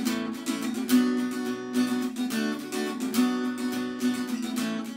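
Acoustic guitar strummed in a steady rhythm, the chords ringing between strokes.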